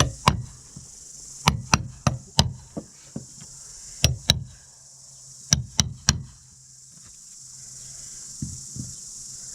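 A mallet striking a caulking iron to drive caulking fibre into the hull seams of a wooden sailboat: sharp knocks in quick groups of two to four, with two softer taps near the end.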